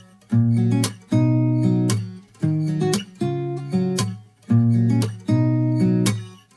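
Background music: acoustic guitar strumming chords, each strum sharp at the start and ringing down before the next, about one a second.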